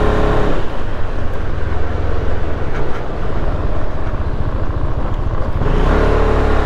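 Kymco Xciting S400i maxi-scooter's single-cylinder engine running at low riding speed, with road and wind noise: a steady low rumble.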